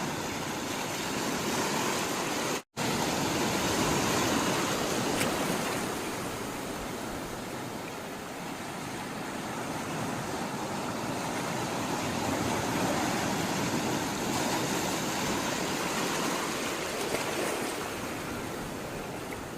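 Sea water rushing and washing, a steady noise that slowly swells and eases, cut off completely for an instant about two and a half seconds in.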